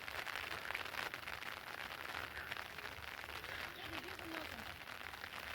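Steady patter of rain, a dense hiss of fine drops. A faint, brief wavering call or voice sounds about four seconds in.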